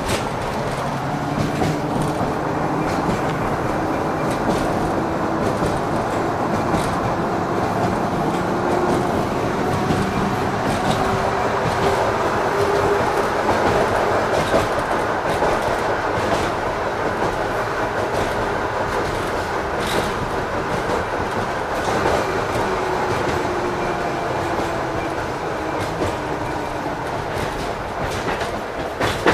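LVS-86K articulated tram running along the track, heard from inside the car: a steady rumble of wheels on rail with scattered knocks as the wheels cross the rail joints. A faint whine rises in pitch over the first dozen seconds and falls again later.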